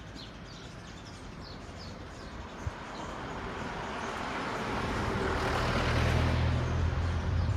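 A motor vehicle approaching and passing close by: engine hum and road noise growing louder over several seconds and peaking near the end. A single sharp click a little under three seconds in.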